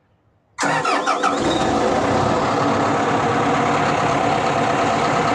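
Komatsu PC200 excavator's diesel engine starting about half a second in, with a brief rising sweep as it catches, then running steadily. It fires after the fuel system has been bled of air following a fuel filter change.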